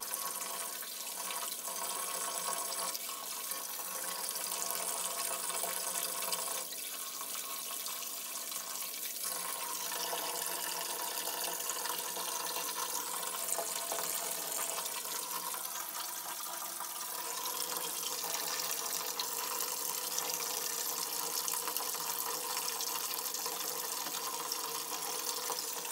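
Bath tap running, water pouring steadily into a filling bathtub.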